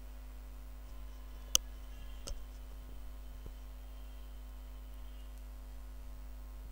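Steady low electrical hum and hiss, with one sharp click about one and a half seconds in and a fainter click under a second later.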